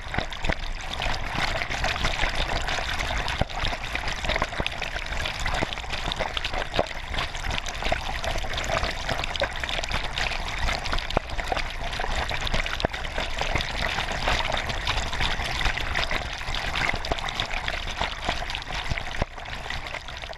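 Danube floodwater rushing and splashing right at the microphone: a steady, dense wash of water noise full of small splashes, dropping away at the very end.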